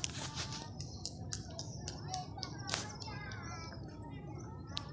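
Outdoor background noise with a quick run of sharp clicks, several a second, over the first three seconds and one more near the end, with faint distant voices.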